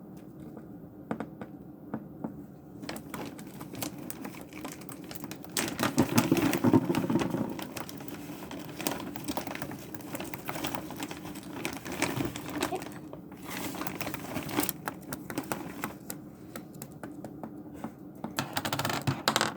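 Irregular clicking and tapping from a cockatiel's beak on small hard objects, with rustling: the bird is handling its fetch toy or cracking a treat seed.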